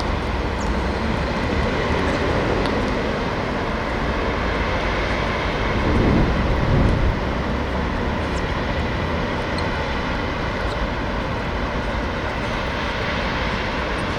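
Steady rushing, rumbling noise with a brief louder swell about six seconds in.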